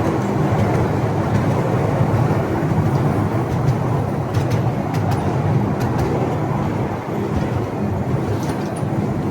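Sightseeing train running, heard aboard: a steady low rumble with a few light clicks and rattles around the middle and again near the end.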